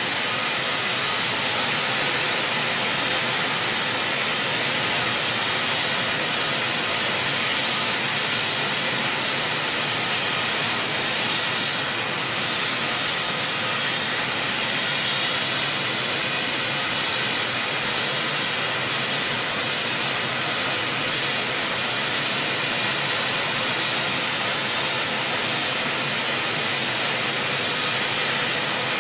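Steady jet-aircraft noise: an even rush with a faint thin high whine that fades out about two-thirds of the way through.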